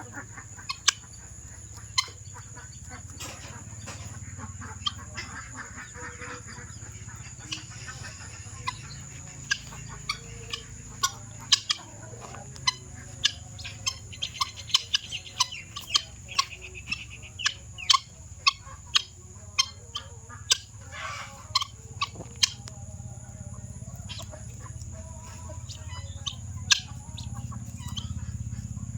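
Guinea fowl cock giving many short, sharp, harsh calls at irregular intervals, over a steady high-pitched hum.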